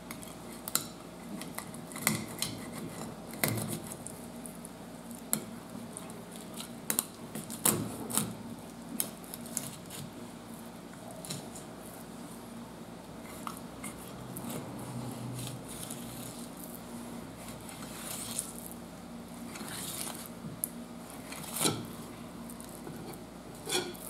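Kitchen knife filleting a black sea bream along its backbone on a cutting board: scattered sharp clicks and scrapes as the blade works through the fish, over a faint steady hum.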